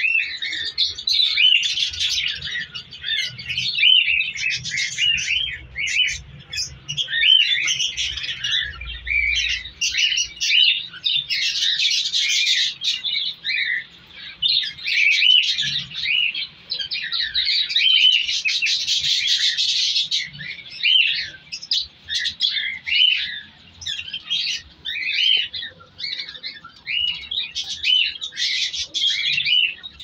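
A flock of budgerigars chirping and chattering nonstop, many short rising and falling calls overlapping one another.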